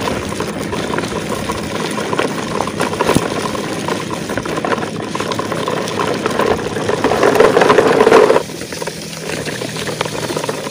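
Plastic toy dump trucks loaded with toy cars rolling over rough, gravelly ground, their wheels and loads rattling with many small clicks. The rattle grows louder, then drops off sharply about eight seconds in.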